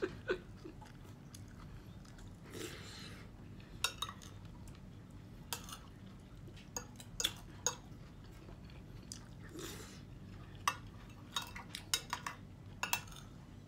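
Spoon and fork clinking and scraping against a plate in scattered short clicks, with chewing. There are two brief breathy noises, one a few seconds in and one near the middle.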